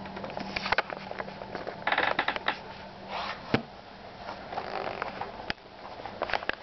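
Alaskan Malamutes scrambling up and moving about on a wooden floor: claws clicking and scrabbling with scuffling and sniffing, in uneven bursts, the busiest about two seconds in.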